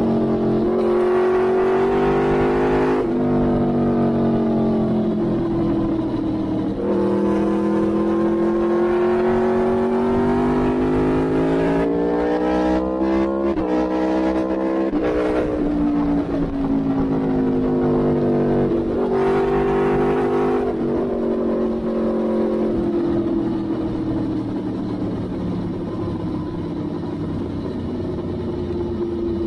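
Aprilia Tuono V4 1000's V4 engine through an Arrow GP race exhaust, riding: the note climbs under acceleration and drops abruptly at several upshifts, then settles to a steadier, slowly falling note for the last several seconds.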